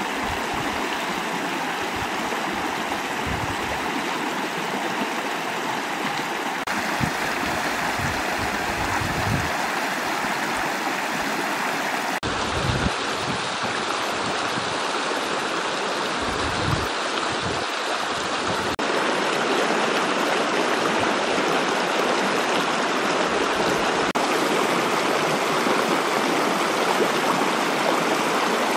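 Shallow mountain stream rushing over a stony bed: a steady hiss of running water, with irregular low rumbles here and there in the first half.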